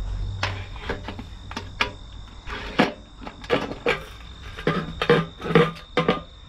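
Metal fuel cap being unscrewed and lifted off the plastic fuel tank of a log splitter's small gas engine: a run of irregular clicks and scrapes. A steady high cricket trill goes on behind.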